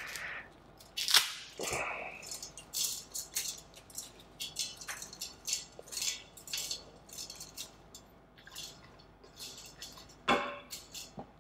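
Dry spaghetti snapped by hand into short lengths: a run of sharp, irregular cracks and snaps, the loudest about a second in.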